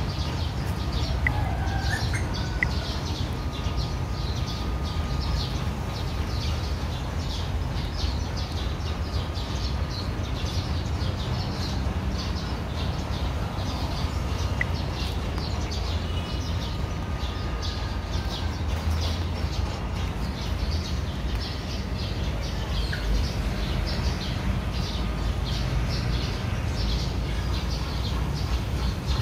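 Outdoor ambience: a steady low rumble with small birds chirping in the background throughout, and a few brief, higher chirps.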